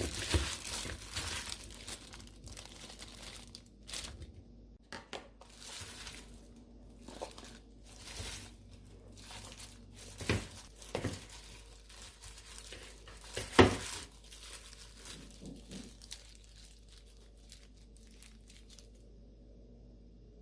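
Crinkling and rustling handling noises, with scattered sharp taps and knocks, the loudest about ten and thirteen and a half seconds in, trailing off to quiet near the end.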